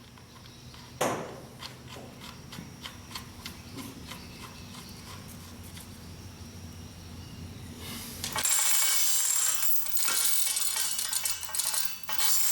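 Metal parts of an old Yale spur-gear chain hoist clicking and clinking as they are handled, with a sharp click about a second in. About two-thirds of the way through, a much louder, steady metallic rattle takes over.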